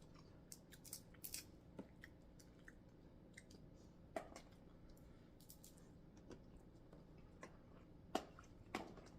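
Quiet, scattered clicks and cracks of seafood shells being snapped and picked apart while eating, with faint chewing. The sharpest cracks come about four and eight seconds in.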